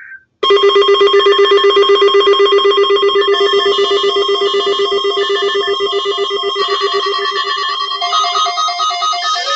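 Electronic alert tone of a weather-radio weekly test broadcast: a loud, rapidly pulsing, bell-like ringing tone that starts abruptly about half a second in, with higher beeping notes joining part way through.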